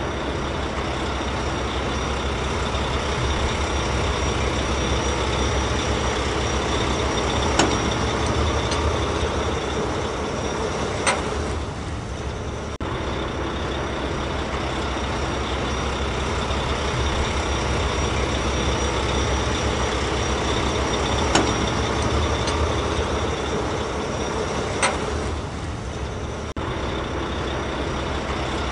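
Heavy truck engine running steadily, a looped sound-effect recording, with a few sharp clicks. The same stretch repeats about every 14 seconds.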